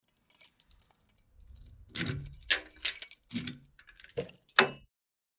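Small metal pieces being handled, jangling and clinking like keys, in an irregular string of light clicks and rattles that grows busier about two seconds in.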